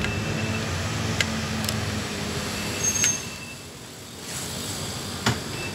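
Steady low vehicle-like rumble with a low hum in the first couple of seconds, broken by a few sharp clicks and short high beeps; the noise dips briefly about three and a half seconds in, and a louder sharp click comes about five seconds in.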